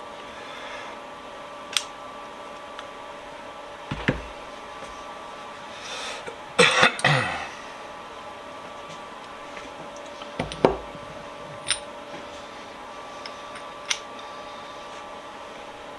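Scattered sharp clicks and knocks of metal vise parts being handled, with a short rattling cluster about six to seven seconds in, over a steady hum.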